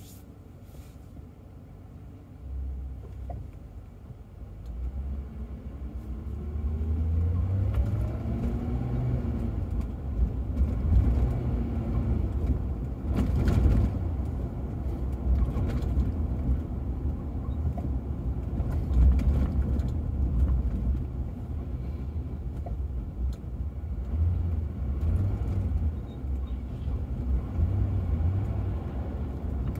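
Ford Crown Victoria's V8 and road noise heard from inside the car as it pulls away from a stop, the engine note rising for a few seconds. It then settles into a steady low rumble of engine and tyres while cruising.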